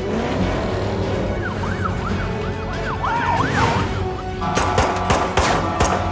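Action film soundtrack: a dramatic music score with car engines, a police car siren sweeping quickly up and down through the middle, then a rapid run of sharp cracks starting about three-quarters of the way in.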